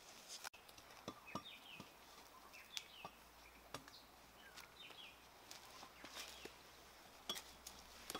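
Faint scattered knocks and crackles of bark and rotten wood being pried and chopped from a charred tree trunk with a cleaver, the sharpest knock near the end. Birds chirp faintly now and then in short, falling notes.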